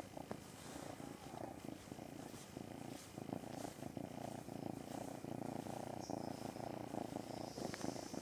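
Black-and-white kitten purring steadily while being stroked, the purr growing louder about three seconds in.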